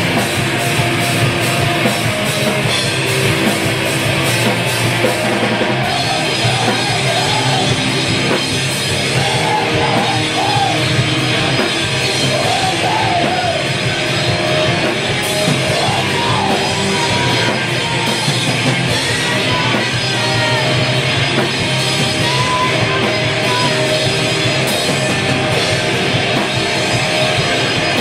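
A hardcore punk band playing live at full volume: distorted guitars, bass and drums with crashing cymbals, and a shouted vocal over the top.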